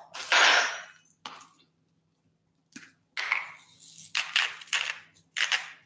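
Hand-twisted salt grinder grinding salt over a bowl: a run of about six short, gritty rasping strokes in the second half, after a brief scraping sound near the start.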